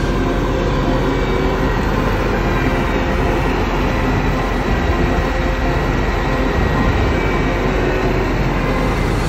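New Holland combine harvester running steadily: a constant heavy engine and machinery drone with several steady humming tones and no breaks.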